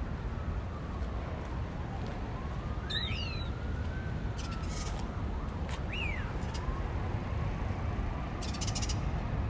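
Outdoor street ambience: a steady low rumble of distant traffic, with short bird chirps about three seconds and six seconds in.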